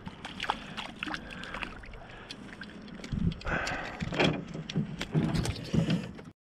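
A hooked fish, which the angler takes for a pickerel, splashing at the surface and then landed in an aluminum canoe, with a run of knocks and rattles from about three seconds in as it hits the hull and gear.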